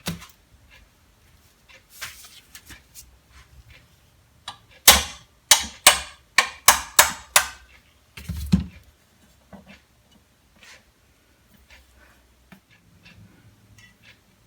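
A stuck part of a belt grinder being hammered loose: a quick run of about seven sharp blows about five seconds in, then one more blow a second later, with lighter knocks and handling sounds around them.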